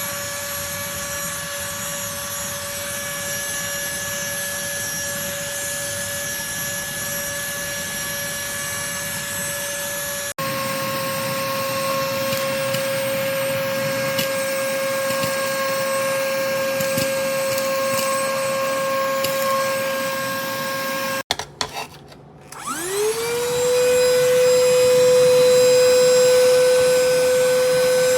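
Small battery-powered handheld vacuum cleaner running with a steady high whine and airflow hiss. The sound jumps abruptly about ten seconds in, cuts out near two-thirds of the way through, then the motor spins up with a rising whine and settles into steady running.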